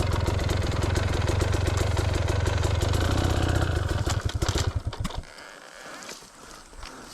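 Enduro dirt bike engine running hard with a steady firing rhythm, then dying away about five seconds in, leaving faint clicks and rustling.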